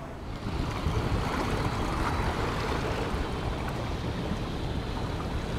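Wind blowing across the camera microphone with a low, fluttering rumble, over the steady rush of sea water along the shore. It swells up about half a second in and then holds steady.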